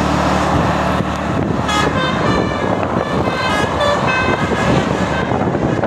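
A bus telolet horn, a multi-tone musical horn, plays a short tune of changing notes for about three seconds, starting about two seconds in, over steady bus engine and road noise.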